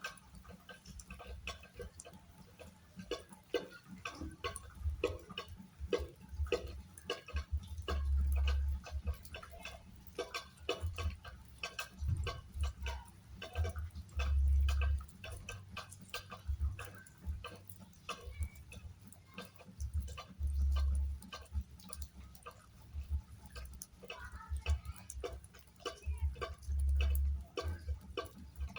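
Rain falling, its drops tapping and dripping as dense, irregular clicks. A deep rumble about a second long comes back roughly every six seconds.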